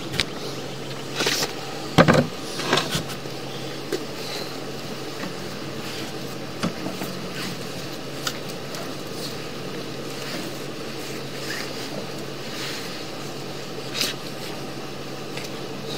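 Sewer inspection camera rig being fed down a drain line: scattered knocks and scrapes over a steady low hum, the loudest cluster about two seconds in.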